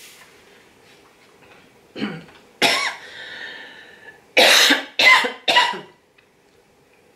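A woman coughing: a short cough, then a stronger one, then three hard coughs in quick succession.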